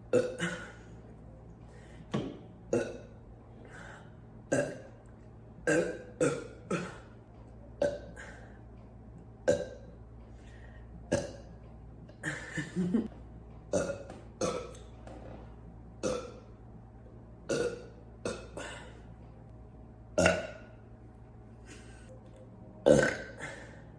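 A woman burping again and again: about twenty short burps, roughly one every second or so, some coming in quick runs of two or three.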